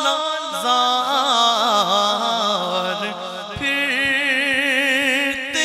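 Male voice singing an Urdu naat into a microphone, with long held notes that waver and turn in ornaments. From about halfway, soft low thumps come about three times a second under the voice.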